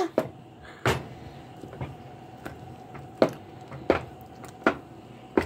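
Wooden spoon stirring a thick, mushy mixture in a stainless steel pot, with short sharp knocks of the spoon against the pot about every three-quarters of a second.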